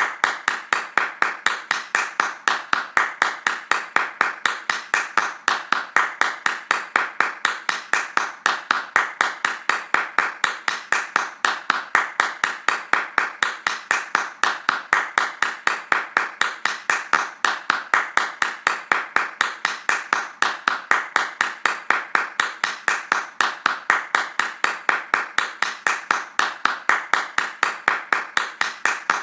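Hands clapping fast in a steady, even rhythm, each clap short and distinct.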